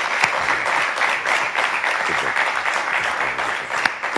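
Studio audience applauding: dense, steady hand-clapping as guests come on stage.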